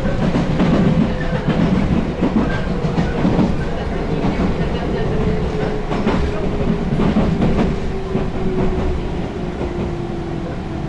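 JR West 221 series electric train running, heard from inside the carriage: a steady rumble with wheels clicking over rail joints now and then, and a thin whine that slowly falls in pitch.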